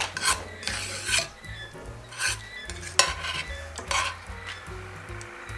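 Metal tongs scraping and clacking against a cast-iron pan as they scoop up saucy masala steak and onions, in a run of short, separate scrapes.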